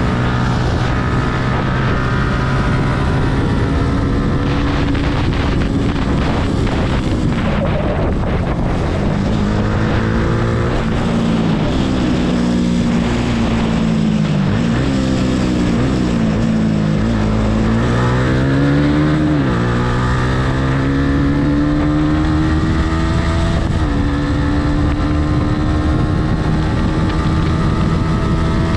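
Yamaha R15's single-cylinder four-stroke engine running hard under the rider, its pitch climbing and falling several times through the middle as the throttle is opened and closed, then climbing steadily near the end.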